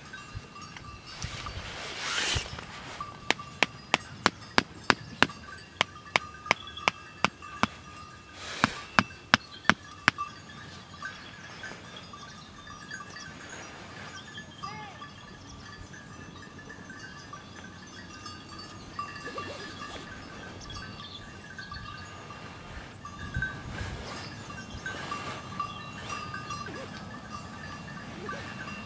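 Tent stake being driven into the ground: about fifteen sharp, evenly spaced knocks, roughly two a second, starting a few seconds in and stopping after about seven seconds.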